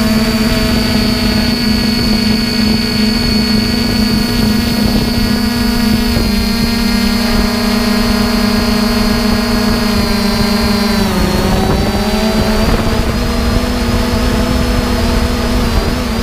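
Quadcopter drone's motors and propellers whining steadily, heard close from its own onboard camera, over a rough low rumble. About eleven seconds in the pitch dips and wavers as the motor speeds change.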